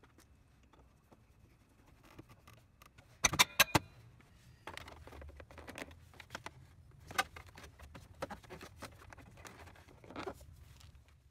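Sharp metallic clicks and clinks of hand tools and scooter body parts being handled, loudest in a quick cluster about three and a half seconds in. Then a soft rustle with scattered taps as hands work over the rubber floor mat.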